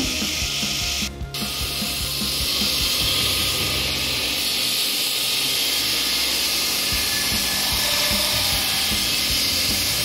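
A metal-cutting bandsaw runs for about the first second. Then a steel piece is ground on the belt of a bench grinder: a steady, rasping abrasive hiss.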